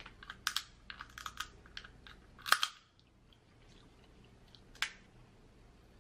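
Close-miked eating: a quick run of small wet clicks and crackles from chewing and picking at shellfish, with a louder crack about two and a half seconds in. After that it goes quiet apart from a single click near the five-second mark.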